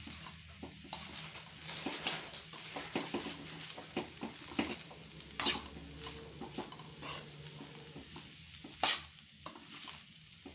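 Metal spatula stirring and scraping shredded cabbage, carrot and soya mince in a kadhai while the vegetables sizzle in oil as they sauté. Irregular scrapes and knocks of the spatula on the pan, two louder ones about five and nine seconds in.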